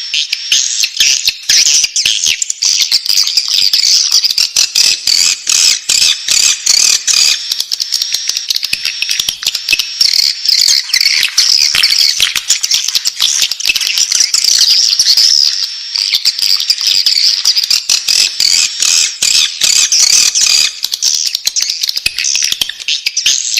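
Swiftlet chicks calling in the nest: a dense, unbroken chorus of high-pitched chattering calls laced with rapid clicks.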